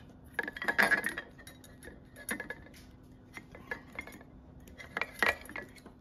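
Light metallic clicks and clinks from a hand tool and the ceiling fan's metal switch housing as the switch wires are being stripped, in a cluster about a second in, once more midway, and again near the end.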